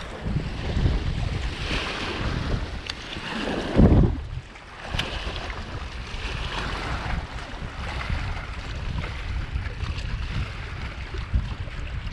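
Wind buffeting the microphone, with small lake waves lapping against the rocky bank; a strong gust hits the microphone about four seconds in.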